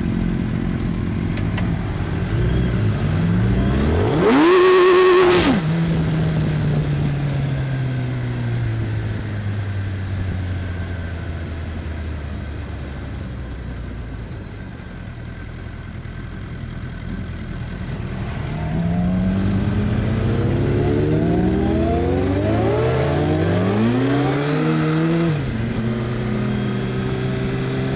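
Suzuki Hayabusa inline-four sport-bike engine under hard acceleration: the revs climb and hold at a loud, high pitch for about a second, then drop away and fall slowly as the bike coasts. Later it accelerates again through several quick upshifts, the pitch rising and dropping back with each gear, until the throttle is shut abruptly near the end.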